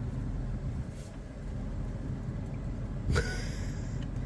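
Steady low rumble heard inside a car stopped at a gate. About three seconds in comes a single short, sharp sound with a brief ringing tone.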